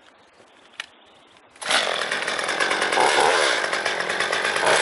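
Quiet, with a single small click, then a chainsaw comes in suddenly about a second and a half in and runs loud and steady.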